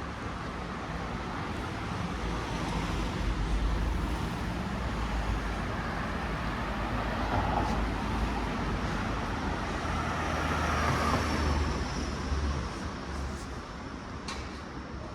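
Street traffic: motor vehicles passing with a low engine rumble, swelling a few seconds in and again about two-thirds through, then fading near the end.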